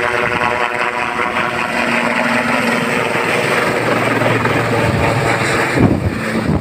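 Sikorsky S-76 helicopter flying low overhead, its turbines and rotors making a loud, steady pitched drone. Near the end a gust of rotor downwash buffets the microphone.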